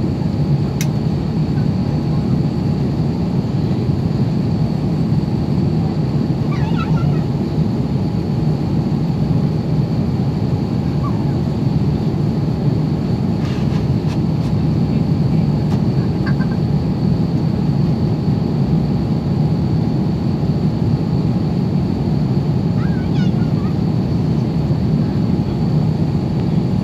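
Steady cabin roar of an Airbus A350-900 climbing after takeoff: its Rolls-Royce Trent XWB engines and the rush of air along the fuselage, deep and even, with a faint steady whine over it.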